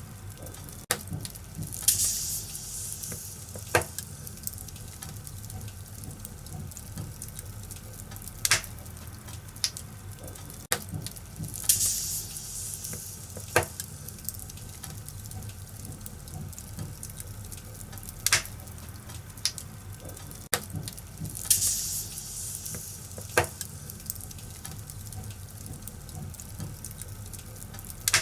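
Fireplace fire crackling, with sharp pops every few seconds and short hissing flares over a steady low rumble.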